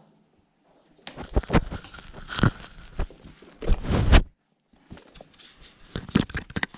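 Crackling and rustling close to the microphone as a rabbit brushes against the floor-level camera. It comes in bursts from about a second in and is loudest around four seconds in, followed by a few sharp clicks near the end.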